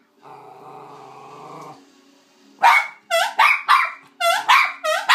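Small white-and-brown terrier barking excitedly in a quick run of sharp, high yapping barks, about three a second, starting a little over halfway in, aimed at a green toy that is being held up and blown into. Before the barks there is a quieter low steady drone lasting about a second and a half.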